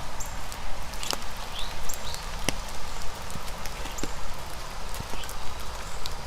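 Footsteps on a wet trail in steady rain, with the hiss of the rain and a sharp tick or step about every second.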